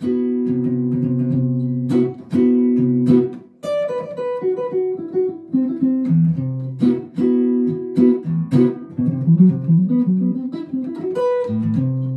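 Hollow-body archtop electric guitar played clean, jazz style: a few held chords for the first three seconds or so, then quick single-note lines mixed with more struck chords.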